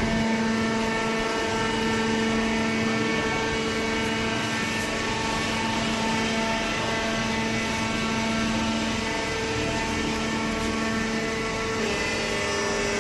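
A hydraulic cardboard baler running, its motor and pump giving a steady hum with a slight change in pitch near the end.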